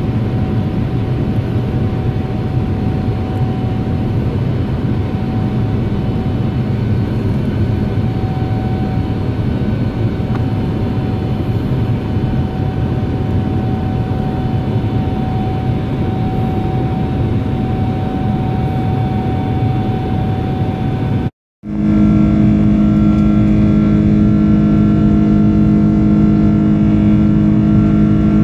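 Steady jet airliner cabin noise during the climb after take-off: engine and airflow noise with a faint steady whine. About three-quarters through it cuts out for a moment and comes back slightly louder, with strong steady low hums from the engine.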